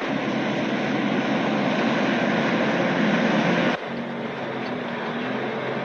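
Truck engine running in the cab, a rough, steady drone; about four seconds in it cuts sharply to a quieter, steadier engine hum.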